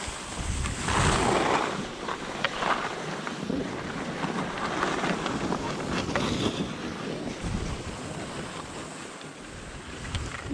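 Skis hissing and scraping over snow on a downhill run, with wind rushing over the microphone. The loudest swish comes about a second in, with a few short scrapes and clicks after it.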